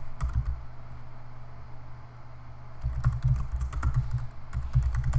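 Typing on a computer keyboard: a few keystrokes at the start, a short lull, then a quick run of keystrokes from about three seconds in.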